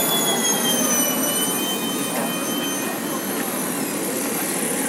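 Model jet turbine engines whining at low power over a steady rushing noise, their high whistle sliding down in pitch about a second in.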